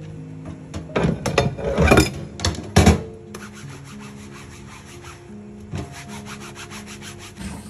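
Soapy sponge scrubbing dishes in a stainless steel sink. There are loud rubbing strokes between about one and three seconds in on a wooden-handled spatula. After that come quick, even, lighter strokes of about six a second on a plastic cutting board. Soft background music plays underneath.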